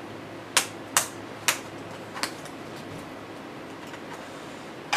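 Sharp plastic clicks as a System76 Oryx Pro laptop's keyboard deck is pressed down into place by hand: four clicks about half a second apart, then one more near the end.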